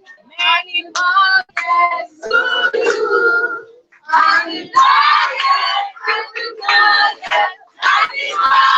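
Voices singing in short phrases with brief pauses between them.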